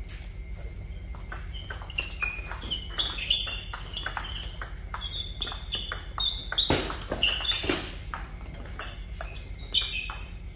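Table tennis rally: the celluloid ball clicking sharply off paddles and table in a quick irregular run, with short high squeaks from the players' shoes on the rubber sports floor. The loudest hits come around the middle.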